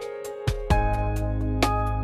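Background music: plucked instrumental notes, joined by a steady low bass chord about three-quarters of a second in.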